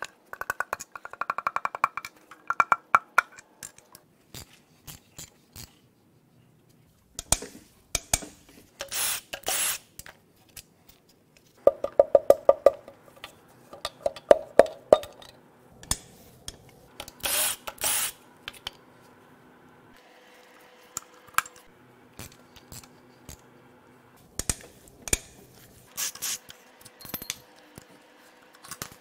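Cordless impact wrench rattling in several short bursts as connecting-rod caps are loosened on a Ford 5.4 3-valve V8, with metal clinks and knocks as the caps come off and pistons are tapped out of the bores with a hammer handle.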